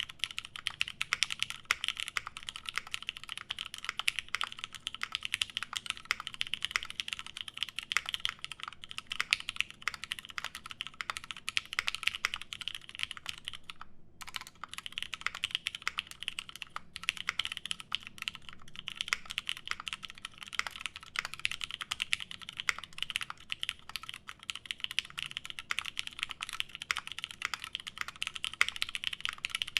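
Continuous fast typing on a Satisfaction 75 mechanical keyboard with lubed Nixie linear switches, an FR4 plate and GMK doubleshot ABS keycaps: a dense stream of clacky keystrokes, with a brief pause about halfway through.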